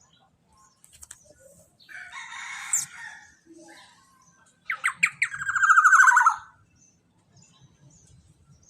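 Young black-naped oriole giving harsh, scratchy calls: a noisy call about two seconds in that ends in a sharp upward squeak, then a louder, longer rasping call of rapid pulses, gently falling in pitch.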